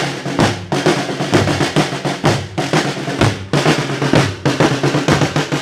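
Several drums beaten together in a quick, driving marching beat, a dense run of strikes several times a second with a deep bass-drum thud under sharper snare-like hits.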